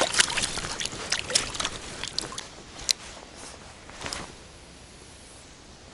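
Water splashing and dripping in quick short bursts, with a few sharp clicks, thinning out after about four seconds into a quiet hiss.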